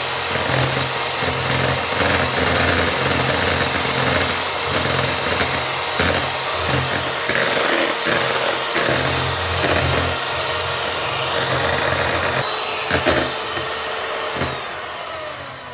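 Electric hand mixer running, its twin wire beaters whipping cream into chantilly in a plastic bowl: a steady motor hum with the churning of the beaters through the cream. It dies away near the end.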